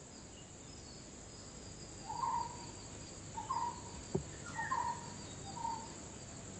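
Garden ambience: a steady high insect trill with five short bird chirps, and a single sharp knock about four seconds in.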